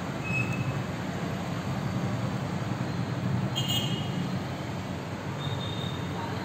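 Steady low rumble of city traffic, with a few brief high-pitched tones, the clearest about halfway through.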